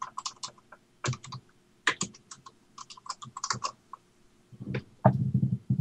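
Typing on a computer keyboard: quick runs of key clicks with short pauses, as a search term is typed in. A louder, low muffled sound comes near the end.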